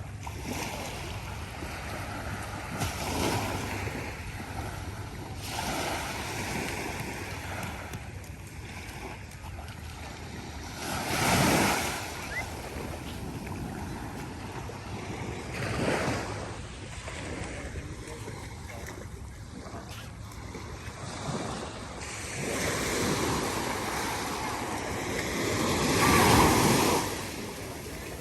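Ocean surf breaking and washing on the shore, with wind on the microphone. Louder waves surge in a little before halfway, again a few seconds later, and in a long swell near the end.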